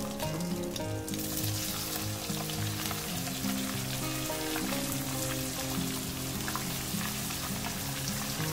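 Hot oil sizzling in a nonstick wok as sliced onions are tipped in to fry; the sizzle jumps louder about a second in.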